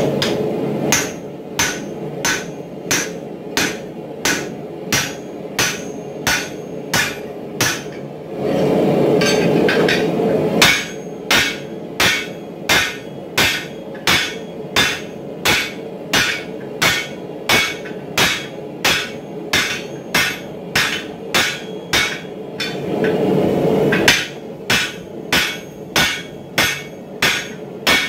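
Hand hammer striking the hot steel of a hammer head being forged over a drift on a swage block, with ringing blows at a steady pace of about one and a half a second. The blows come in three runs, broken twice by a steady rushing noise.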